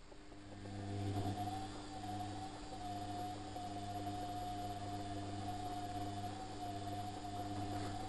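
Front-loading washing machine's drum motor starting about half a second in and turning the drum of wet laundry during the wash: a steady motor hum with a higher whine over it.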